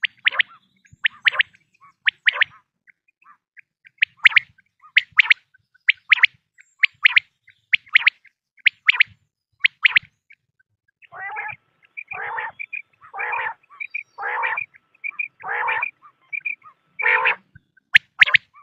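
Quail calling over and over. For the first ten seconds there are short sharp calls in pairs about once a second. From about eleven seconds in come longer, lower calls about once a second, with short high notes between them, and near the end the sharp calls return.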